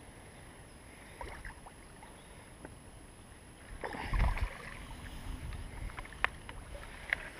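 Water splashing as a hooked bream is drawn in and landed, loudest about four seconds in, followed by a few sharp clicks near the end.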